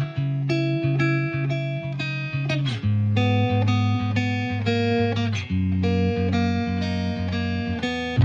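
Music: picked guitar notes over a held low note, with the bass changing about three seconds in.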